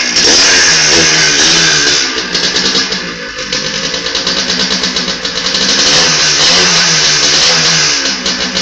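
Yamaha DT two-stroke motorcycle engine, fitted with a moped's CDI ignition unit, revved up and down in the first couple of seconds. It then runs with a fast, uneven popping beat, rising again for a moment near the middle.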